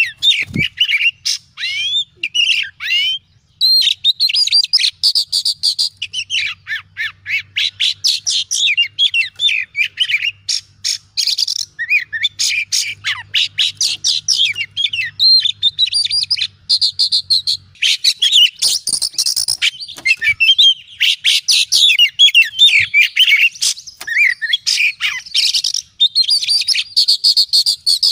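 Oriental magpie-robin singing continuously and loudly: a fast, ever-changing run of clear whistled sweeps, trills and short scratchy, clicking notes with only brief pauses.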